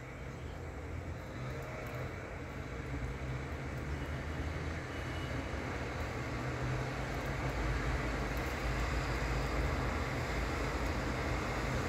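Road traffic in rain: a steady low engine rumble with tyre and rain hiss off wet roads, slowly growing louder.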